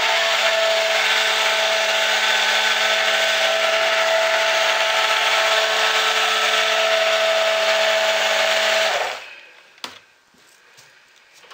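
Handheld stick blender running steadily in raw soap batter, blending it toward a thick trace. It cuts off about nine seconds in.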